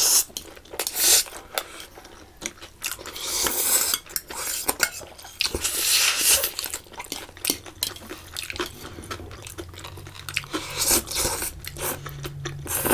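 Metal spoons and forks clinking and scraping against stainless-steel bowls, mixed with slurping and chewing of black bean noodles.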